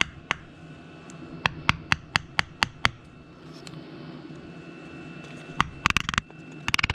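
Light hammer taps driving a rear main seal into the block around a Subaru crankshaft: a quick run of about seven taps a couple of seconds in, a pause, then a few clustered taps near the end.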